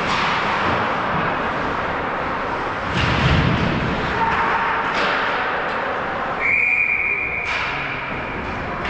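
Ice hockey rink noise: a steady din with a few sharp clacks of sticks and pucks. A referee's whistle sounds once, a steady tone lasting about a second, about two-thirds of the way through.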